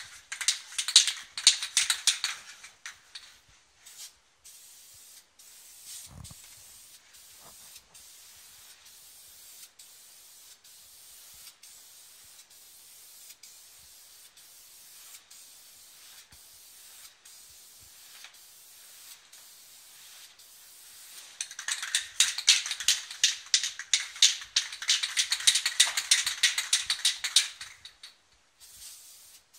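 Aerosol can of gloss black enamel spray paint hissing as a coat is sprayed on: a short spray in the first two to three seconds, then a longer, pulsing spray for about seven seconds in the last third.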